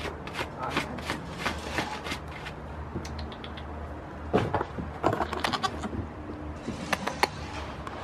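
Goat bleating close up, among scattered sharp clicks and knocks.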